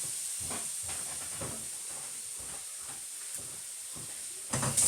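Sirloin steak strips sizzling in a pot with minced garlic, a steady high hiss, while a spoon scrapes and knocks against the pot over and over as the meat is stirred.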